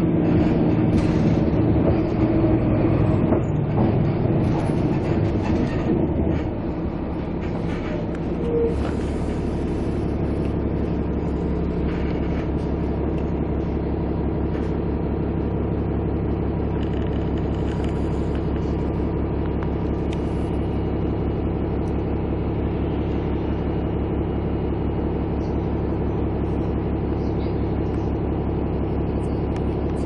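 Steady vehicle engine drone with an even, rapid pulsing hum. It is louder and fuller for the first six seconds or so, then settles into an even drone.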